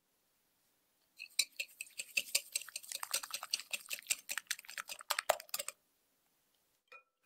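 Hand whisk beating eggs and sugar in a glass bowl: rapid, clattering clicks of the wires against the glass for about four seconds, then one short ringing clink near the end.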